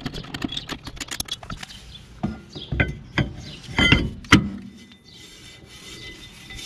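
Rapid clicking of a drum brake's star-wheel adjuster being cranked to expand the shoes. Then several metallic clunks and clinks as the new brake drum is fitted back over the shoes onto the hub, with a faint ringing near the end.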